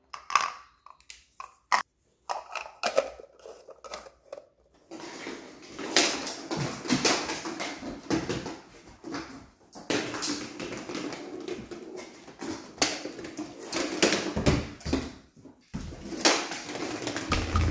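Hard plastic treat-dispensing balls being snapped shut by hand with a few sharp clicks, then border collies nosing and rolling the blueberry-filled balls across a tile floor in an irregular clatter of knocks and rattles.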